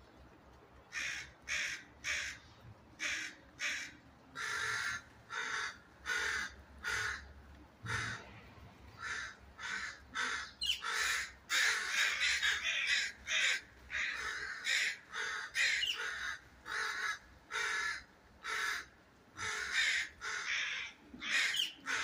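Crows cawing over and over in alarm, mobbing an owl that has caught one of their flock. The calls start about a second in, come roughly one a second at first, then grow denser and overlap as several crows call at once from about halfway through.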